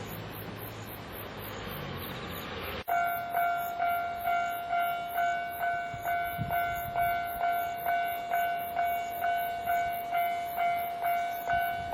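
A low engine hum over steady noise, then, after a sudden cut about three seconds in, a Japanese railway level-crossing alarm rings its electronic bell tone at about two strikes a second.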